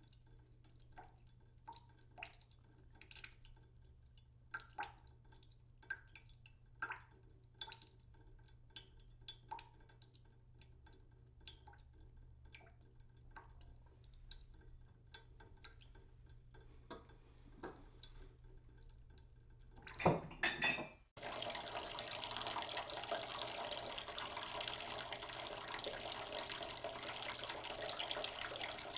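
Purple cauliflower and purple potato pieces frying in oil in a nonstick pan: for the first two-thirds, sparse pops and crackles of spitting oil, then a louder burst and a dense, steady sizzle to the end.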